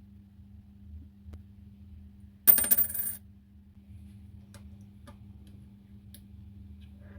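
A 10-rupee coin dropped onto a hard surface, clinking and ringing for under a second about two and a half seconds in. A steady low hum runs underneath.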